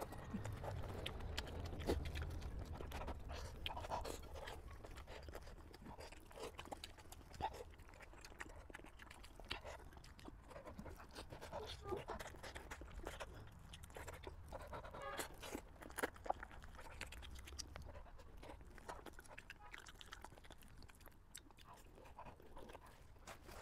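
Close-up mouth sounds of a person chewing braised sheep-head meat in chili sauce: soft, wet chewing and smacking with small crunches scattered throughout.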